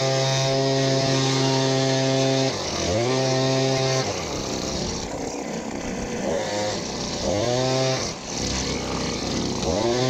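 Mountfield petrol blower-vac blowing at full throttle, the engine dropping off and climbing straight back about two and a half seconds in. From about four seconds it runs near idle with a couple of brief blips of throttle, then revs back up to full blow near the end.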